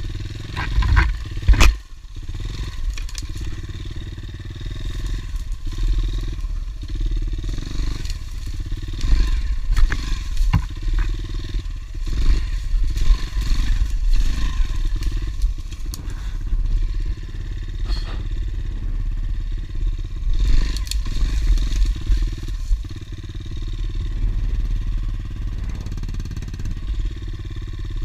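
Honda CRF110 pit bike's small single-cylinder four-stroke engine running as it is ridden over rough ground, with frequent knocks and rattles from the bike jolting over the trail.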